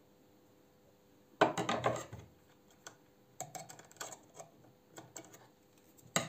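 Metal clicks and clatter from the needle-plate and bobbin area of a Singer 66 sewing machine being handled: a clattering burst about a second and a half in, scattered light clicks, and another loud clatter at the end.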